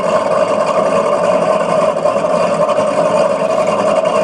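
A model boat's electronic engine sound module plays a steady, loud simulated boat engine idling through its small onboard speaker.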